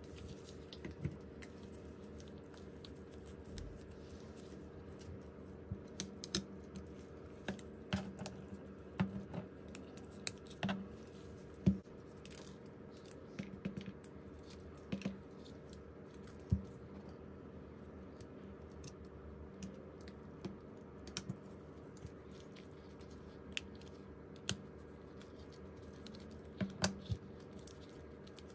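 Irregular small clicks and taps of hand tools on smartphone parts during a phone repair, over a steady low hum.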